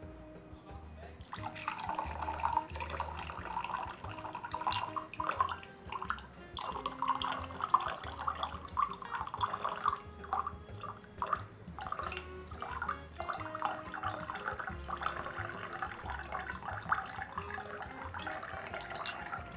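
Water being poured from a glass jug into a drinking glass in a long, unbroken trickling pour.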